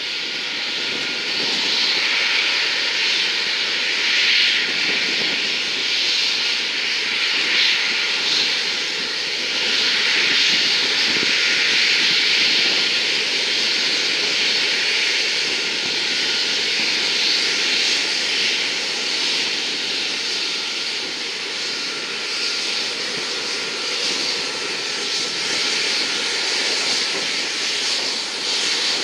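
Boeing RC-135W Rivet Joint's four CFM F108 turbofans running at taxi power as the jet rolls past: a steady jet rush with a faint, steady whine, swelling a little a few seconds in.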